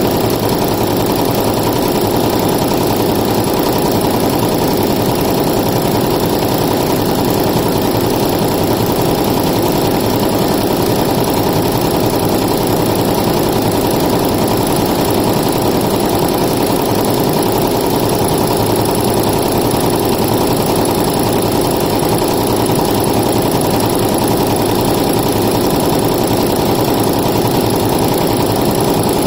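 Multi-needle embroidery machine running steadily, its needle stitching at speed in a rapid, even mechanical rhythm.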